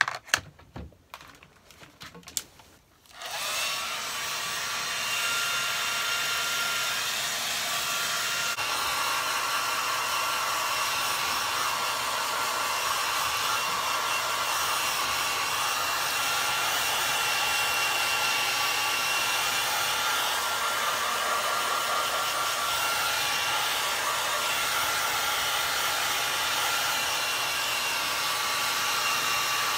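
A few clicks and knocks, then about three seconds in a hand-held hair dryer switches on and runs steadily, a loud rush of air with a thin whine in it, blowing through long wet hair.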